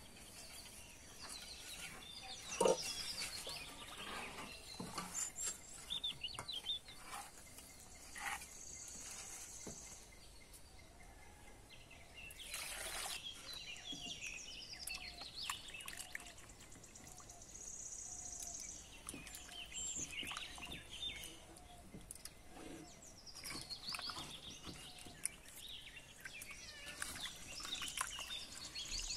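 Hands rubbing and squeezing pieces of para fish in salted water in a clay bowl, with wet squelching and small splashes, the strongest about two and a half seconds in and near the middle. Birds chirp throughout in the background.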